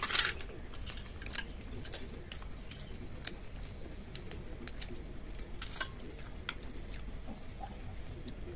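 A person eating idli by hand: soft chewing with small scattered clicks and taps throughout, and a short, louder burst of noise right at the start.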